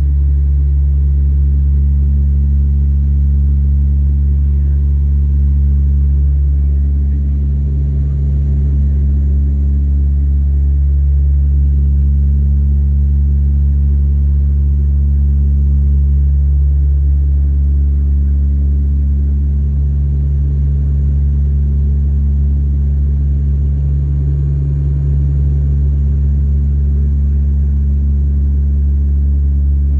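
Steady, loud drone of an airplane's engines heard inside the passenger cabin, a deep hum made of several steady low tones that barely changes.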